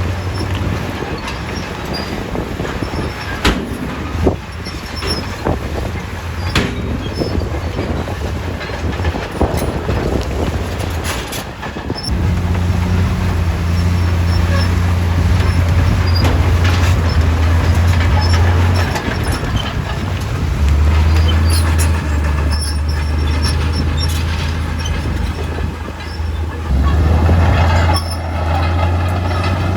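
Komatsu D68E crawler bulldozer working rock: its diesel engine runs loud and steady, and its steel tracks clank with scattered sharp knocks of rock. The engine note steps up and down several times, about 12, 20 and 27 seconds in, as the load changes.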